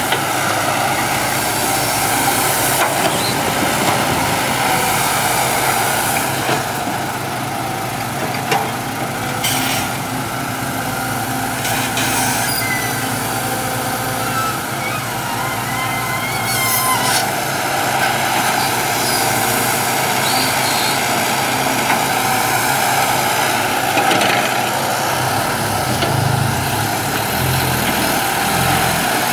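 Kobelco hydraulic excavator's diesel engine running steadily as it works, with a dump truck's engine idling, and several short sudden crashes as loads of soil and rocks drop into the truck's bed.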